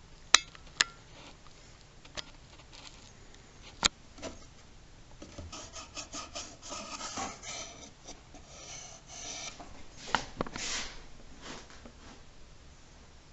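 Pine pieces being handled on a workbench: several sharp wooden knocks in the first four seconds, then a few seconds of dry rubbing and scraping as a small piece is slid against a bracket, with two more knocks about ten seconds in.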